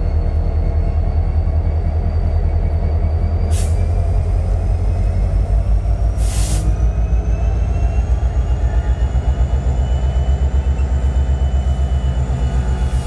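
Union Pacific 4141, an EMD SD70ACe diesel-electric locomotive, running as it rolls slowly along the track: a deep, pulsing rumble with a faint high whine that rises slowly. Two short hisses come about three and a half and six seconds in.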